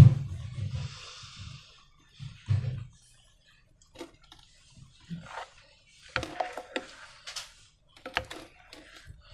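Hands handling slime and balloons: a sharp loud knock at the start with a short hiss after it, then scattered small taps, clicks and rustles.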